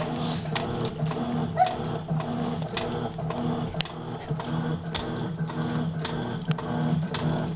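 Electrolux LM06 top-loading washing machine washing a load, its motor humming in repeated pulses with scattered clicks as the wash action turns back and forth.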